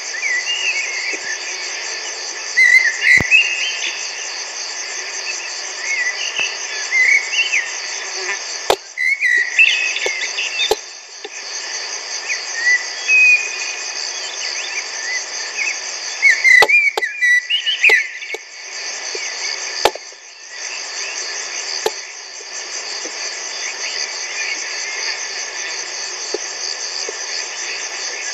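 Common blackbird singing short whistled phrases at intervals over a steady, continuous chorus of crickets. A few sharp clicks sound now and then.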